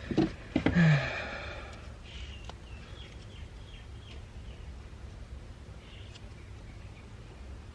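A man's sigh about a second in: a short voiced note dropping in pitch, then a breathy exhale lasting about a second. After it there is only a low steady background hum with a few faint high chirps.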